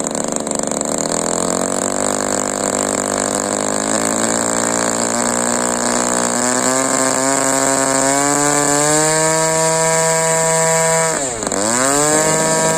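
DLE 20cc single-cylinder two-stroke petrol engine with side exhaust, running in a 60-size RC Chipmunk model plane. Its revs climb gradually over the first nine seconds and hold high, then drop sharply for a moment about eleven seconds in and pick back up.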